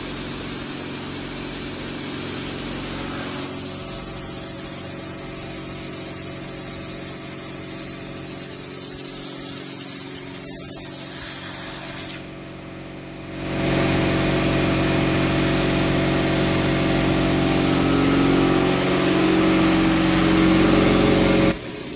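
CNC plasma cutter running: a loud, steady hiss with a steady hum beneath it. It drops off briefly about twelve seconds in, comes back louder a second or so later, and cuts off abruptly near the end.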